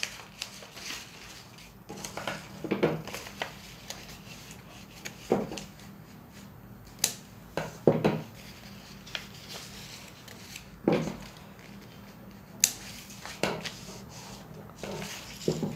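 Scissors snipping a paper pattern and being set down on a tabletop, with the paper pieces handled and pressed flat: scattered snips, clicks and short knocks a second or two apart.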